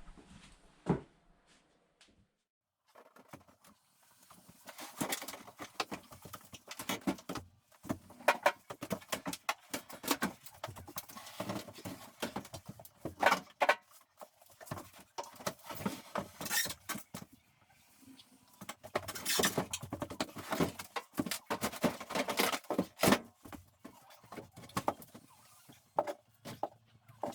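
Irregular knocking, clattering and scraping of hand demolition as the old kitchen counter is pulled out, after a short silent gap near the start.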